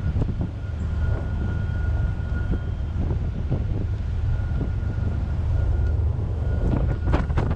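Steady low rumble aboard a car ferry under way in strong wind, with a faint steady whine above it. A few sharp knocks come near the end.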